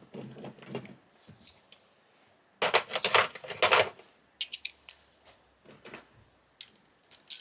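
Small metal parts and hand tools clinking and clicking on a workbench during a teardown, with a louder clatter lasting about a second, beginning between two and three seconds in.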